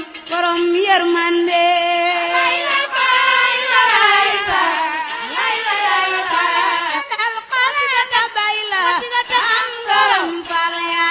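Wolof devotional singing: a solo voice sings long, wavering, ornamented lines over music.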